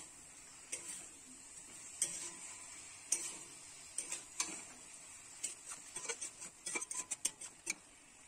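Metal spatula scraping and knocking against a metal kadai as it stirs cut star fruit pieces. The scrapes and clicks come irregularly, then quicker in a run of strokes near the end before stopping.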